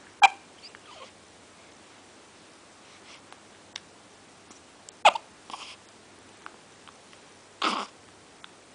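A baby hiccuping: two short, sharp hiccups about five seconds apart, with a brief noisy sound, like a breath, near the end.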